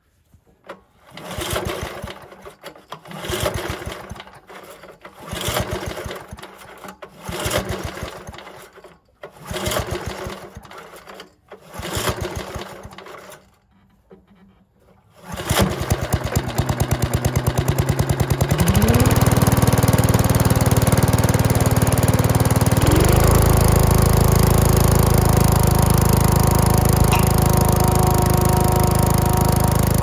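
Old Briggs & Stratton single-cylinder engine on a 1985 yard vacuum being pull-started. About six pulls of the recoil starter turn it over without catching, then it fires, runs slowly for a few seconds, and revs up in two steps to a steady fast run. It is the first start after the carburetor service.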